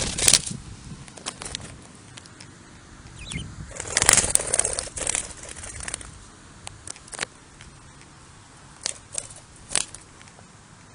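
Young budgerigar's wings flapping in quick flutters, a short burst at the start and a longer, louder one about four seconds in, followed by a few isolated soft clicks.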